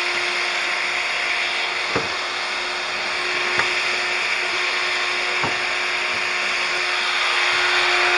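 Handheld electric drill running steadily at one speed, boring into wood, with three short knocks spaced a second or two apart.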